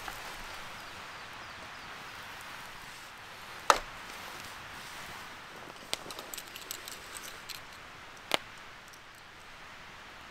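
A few sharp, separate cracks or knocks, a few seconds apart, with a run of smaller clicks between the second and third, over a steady soft hiss.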